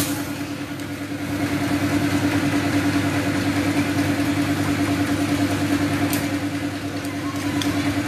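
A small engine running steadily at idle with a fast, even pulse. The level dips briefly about a second in, and a few light clicks come near the end.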